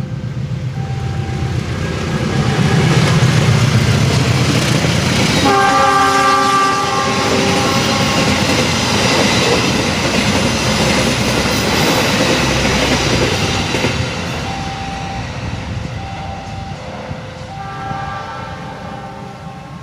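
Diesel train passing at speed, its engine rumble and wheel clatter swelling, staying loud for several seconds and then fading. Its multi-tone horn sounds about five seconds in, and again briefly near the end.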